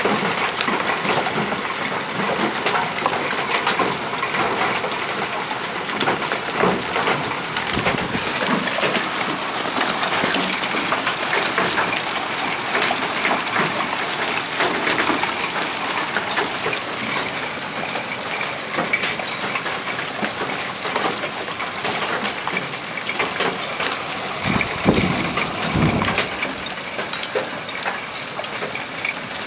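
Hailstorm: hailstones and rain pelting the ground and nearby surfaces, a dense steady clatter of many small ticks over the hiss of rain. A brief low rumble comes twice near the end.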